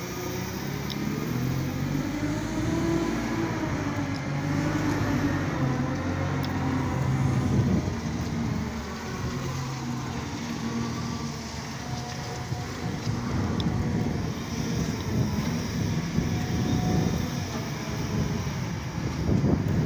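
Liebherr reach stacker's diesel engine running, its pitch rising and falling as the machine drives and lifts a loaded container on its boom.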